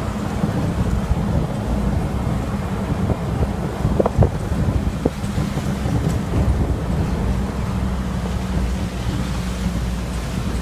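Steady engine and road rumble of a moving vehicle, with wind buffeting the microphone. A brief click about four seconds in.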